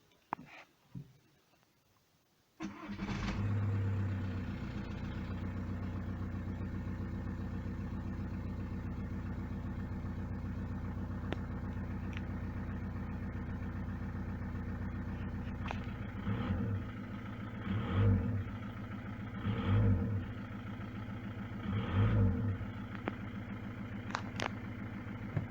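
A few clicks, then the VW Golf Mk5's 1.9 TDI four-cylinder turbodiesel fires about two and a half seconds in with no long cranking, flares briefly and settles to a steady idle. Near the end it is revved briefly four times, about two seconds apart.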